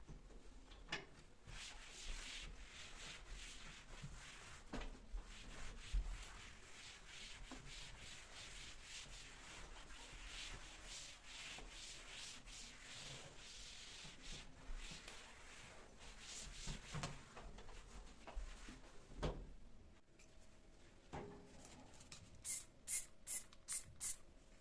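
Steady scrubbing of a surface during household cleaning, a rough rubbing sound that rises and falls for most of the stretch, with a few light knocks. Near the end come five short hissing bursts in quick succession.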